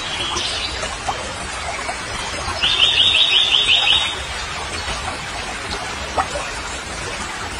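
A bird's short, high-pitched trill of about eight quick notes, over a steady background hiss.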